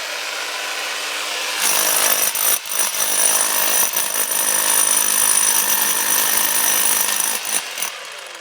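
Jackhammer hammering into a concrete block wall, getting louder about two seconds in, with a brief break partway through and a short stop-start near the end before it dies away.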